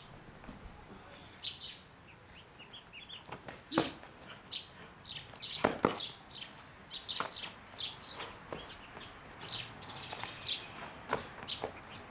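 Birds chirping: many short, sharp calls, several sweeping down in pitch, with a few louder ones in the middle stretch.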